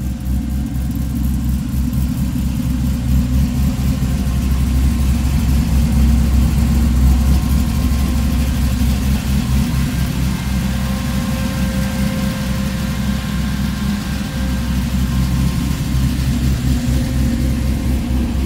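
Chevrolet S10's swapped-in 5.3-litre LS V8 running at a steady idle, a loud low exhaust rumble.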